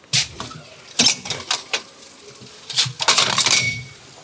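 Metal clanks and rattles from a forklift's forks and mast as it manoeuvres with its forks raised, in several quick clusters, the densest near the end.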